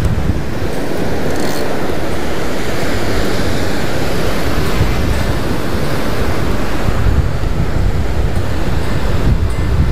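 Ocean surf breaking and washing up the beach, with wind buffeting the microphone as a steady low rumble underneath.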